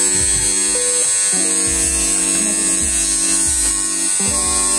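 Aiker AG-097 cordless pet grooming clipper running steadily, its motor and reciprocating blade giving a continuous high buzz.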